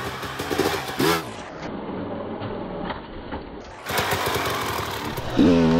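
Two-stroke dirt bike engine running, louder from about four seconds in as a KTM 250 XC-W is ridden past close by.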